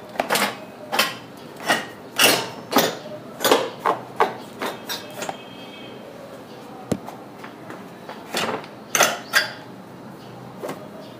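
Old rear brake cable of a Honda Activa scooter being pulled up out of the body by hand: a series of short scraping rubs and knocks as the cable drags through the frame, in quick pulls, a pause with one sharp click, then a few more pulls near the end.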